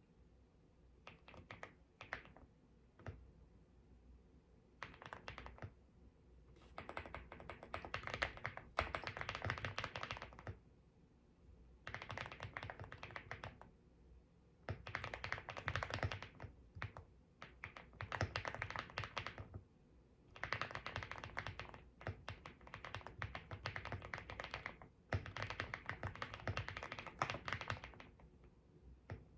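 Typing on an EPOMAKER Galaxy70 aluminium mechanical keyboard with HUANO Blossom Odyssey switches. The key clicks come in quick runs of a second or two, with short pauses between them.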